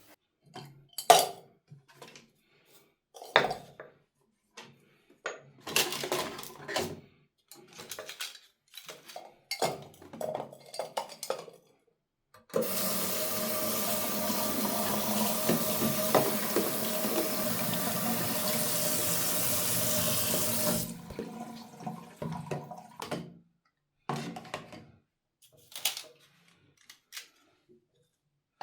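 Short knocks and clinks of objects being handled, then a water tap running steadily into a sink for about eight seconds before it is shut off, followed by more handling sounds.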